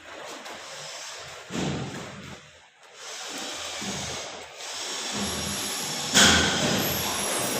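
Rough scraping noise in stretches, broken by knocks, the loudest about six seconds in.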